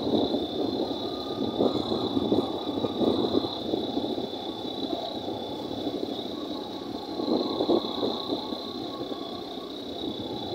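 Vehicle heard from on board while moving along a road: a continuous rough rumble of engine, road and wind noise that swells and eases, with a steady high-pitched tone above it.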